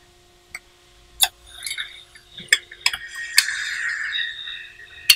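A clip-on caliper cover being worked onto a brake caliper by hand: about six sharp metallic clicks and clinks, with a scraping rub about three seconds in, as the clip is pushed under the caliper bracket and its slot lined up with the side stud.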